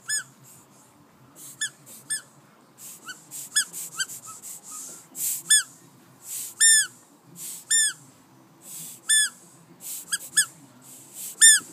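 Rubber squeaky dog toy squeaking over and over as it is bitten and squeezed: about fifteen short, high squeaks of the same rising-and-falling shape, irregularly spaced, with soft breathy hisses between some of them.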